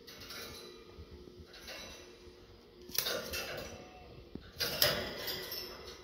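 Black wire birdcage rattling and clinking, two sharp metallic clatters about three seconds in and again near five seconds.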